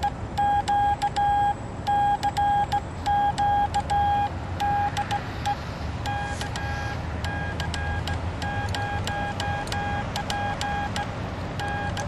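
Morse code (CW) sidetone from a 10 GHz amateur microwave station: a single-pitched beep keyed on and off in dots and dashes as the operator beacons. The tone becomes quieter about five and a half seconds in, while the keying carries on.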